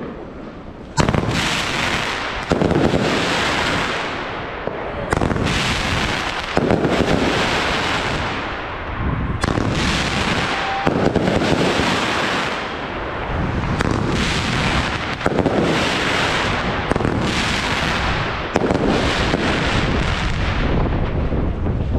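Firework battery (cake) firing its shots in sequence, starting about a second in. There is a sharp report roughly every second and a half, each followed by a dense hissing rush that overlaps the next shot.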